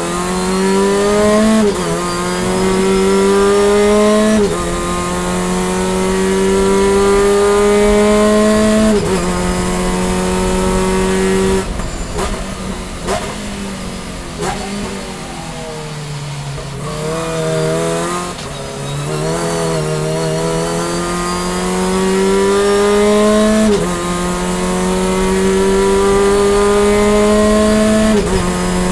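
VW Fun Cup race car's engine, heard from inside the cockpit, revving up through the gears with a sudden pitch drop at each upshift. About twelve seconds in it falls away under braking, with wavering throttle blips on the downshifts. It then pulls hard again through two more upshifts.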